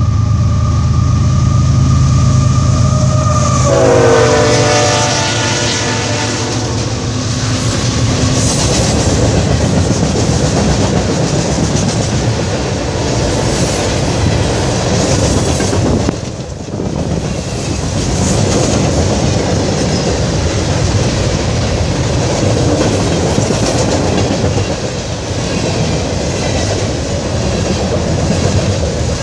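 Freight train passing close by. The locomotive's horn sounds and drops in pitch as the engine goes by. Then comes a long, steady rumble and clatter of wheels over the rail joints as the cars roll past.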